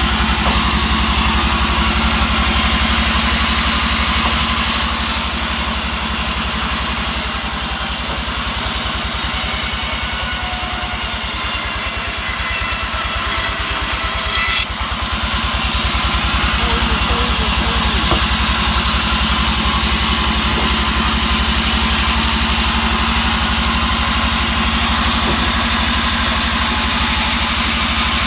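Engine-driven sawmill running steadily, a constant engine hum under a high hiss. The hiss thickens a few seconds in and cuts out for a moment about halfway through before picking up again.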